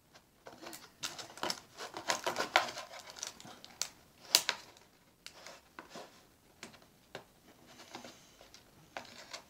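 Small screwdriver working at the screws of a toy RC truck's plastic body in its cardboard packaging tray: irregular clicks, taps and light scrapes, busiest in the first half, with one sharper knock about four and a half seconds in.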